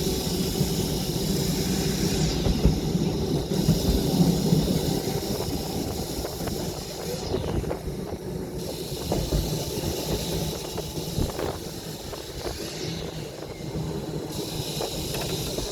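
Blackpool English Electric boat car tram running along the track: a steady rumble of wheels and motor, with occasional sharp knocks from the rails and a hiss above.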